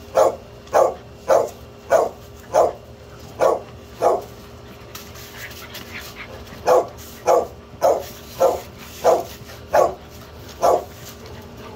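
A dog barking in two runs of short, evenly spaced barks, about two a second, with a pause of roughly two seconds in the middle.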